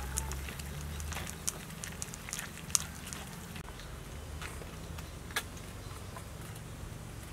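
Metal spoon clicking and scraping against a woven bamboo strainer as tamarind pulp is pressed into a pot of boiling soup: irregular sharp taps over a low steady rumble.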